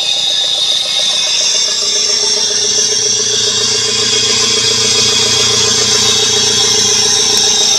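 Toyota Land Cruiser engine running steadily at idle under the open bonnet.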